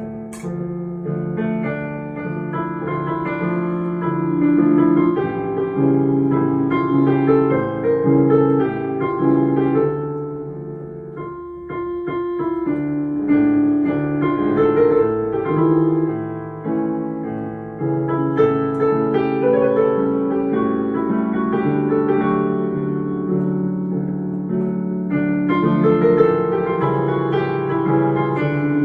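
A digital piano played with two hands: a flowing melody over chords, phrase after phrase, with a short break about halfway through before the playing picks up again.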